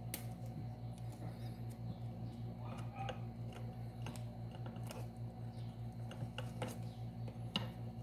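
Quiet handling of black electrical tape and wires as a wire splice on a fan motor is insulated: faint rustling with a few light clicks, over a steady low hum.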